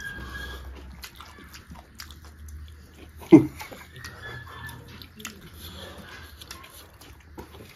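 Close-miked eating: chewing with many small wet clicks and lip smacks. A little past three seconds in there is one short, louder sound.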